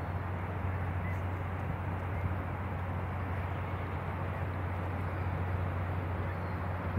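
Fireboat's engines running as a steady low drone across the water, under an even outdoor hiss.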